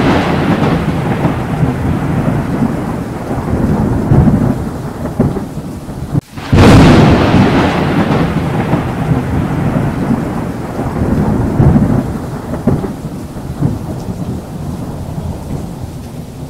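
Thunder and rain. A rolling rumble fades away, cuts out briefly about six seconds in, and then a second loud thunderclap strikes and rolls off into a long rumble over rain.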